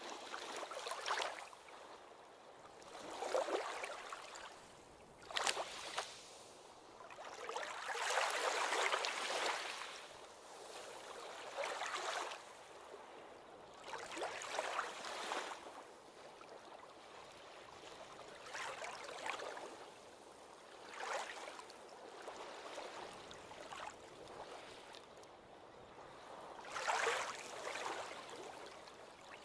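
Small ocean waves washing onto the shore in a series of short surges, one every couple of seconds, with a light hiss and no deep rumble.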